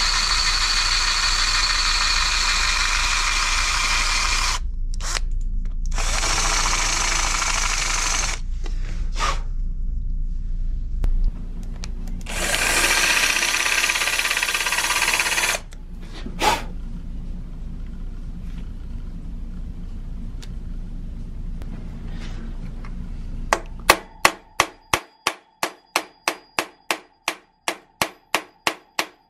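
Cordless drill with a quarter-inch (6.35 mm) bit drilling into the bottom of a Brompton's main frame hinge pin, run in several bursts of a few seconds each; the hinge has play and the pin is being drilled out for replacement. About 24 seconds in the drilling stops and a hammer starts tapping a pin punch on the hinge, about three sharp taps a second.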